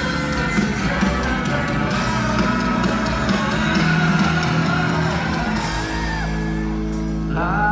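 Live pop-rock band music with guitar filling a large stadium, with a singing voice that comes in near the end.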